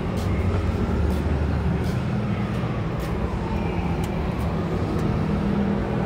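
Steady city traffic rumble, with faint rising and falling tones from passing vehicles.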